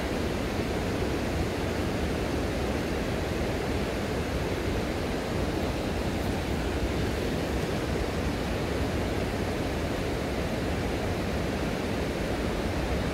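Steady rushing of a mountain river's flowing water.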